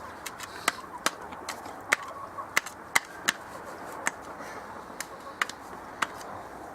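A series of about a dozen sharp, irregular clicks and knocks over a faint steady hiss.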